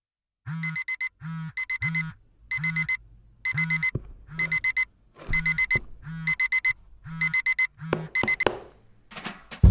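Smartphone alarm going off: bursts of rapid high electronic beeps, about one burst a second, with a low buzz under each burst. A few sharp clicks come near the end.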